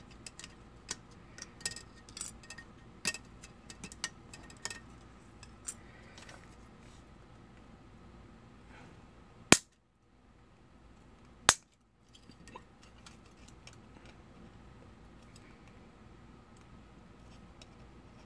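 Light clicks and taps of plastic model-kit parts and sprue being handled on a workbench, then two sharp clicks about two seconds apart.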